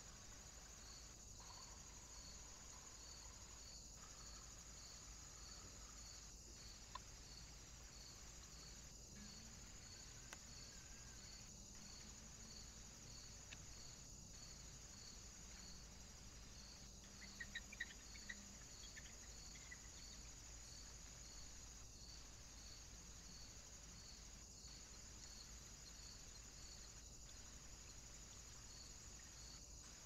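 Near silence: a faint steady high hiss with a faint, evenly repeating pulse, and a few soft clicks about halfway through.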